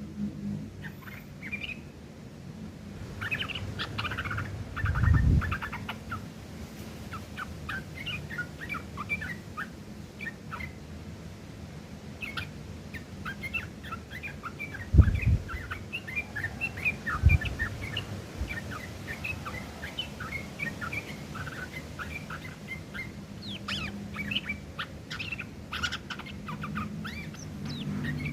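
Yellow-vented bulbul (trucukan) singing a rapid, rough chattering song of short chirps, laced with mimicked long-tailed shrike calls. Three dull thumps break in, one early and two about halfway through.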